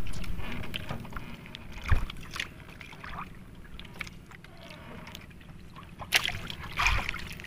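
Fishing handline being hauled in hand over hand on a small outrigger boat: scattered knocks and rustles, a sharper knock about two seconds in and a few more near the end, over steady wind and water noise.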